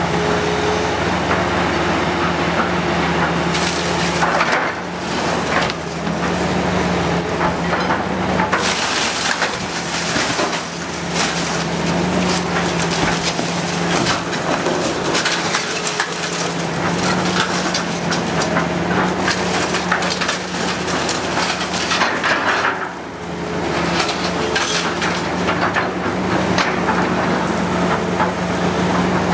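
Hydraulic excavator demolishing a building: its diesel engine runs steadily while wood and metal debris crunch, splinter and crash down in repeated impacts.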